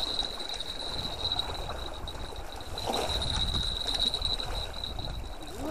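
Wind rumbling on the microphone and small waves lapping against the shore, with a steady high whine.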